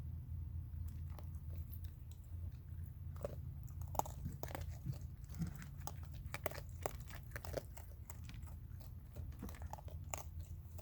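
Raccoons crunching and chewing hard dry food: irregular crisp crunches and clicks, a few louder ones about four seconds in, over a steady low hum.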